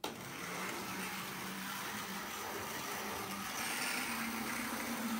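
OO gauge model diesel locomotive running along the track: a steady whirr of its small electric motor with a low hum, wheels rolling on the rails, the hum rising slightly in pitch about four seconds in.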